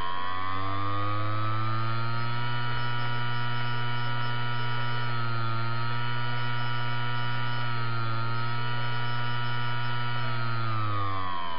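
Hard disk spindle motor with a damaged bearing, humming with a higher whine above it. The pitch rises as it spins up at the start, dips briefly twice as the speed wavers, and falls as it winds down near the end. The unsteady speed is the sign of a bad spindle-motor bearing.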